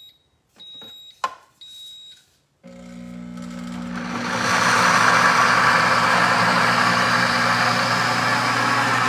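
Pampered Chef Deluxe Multi-Blender's control panel beeping twice, with a click, then its motor starting nearly three seconds in and building over a couple of seconds to a loud steady whir as it grinds whole peanuts into peanut butter on the grind setting.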